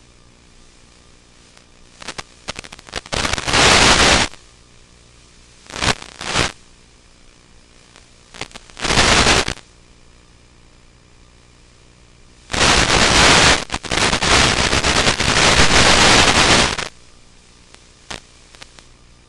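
Loud bursts of radio static in the FPV video receiver's audio, crackling in and out over a faint steady hiss: a couple of seconds in, twice more around 6 and 9 s, then one long burst of about four seconds. These are signs of the analog video link breaking up.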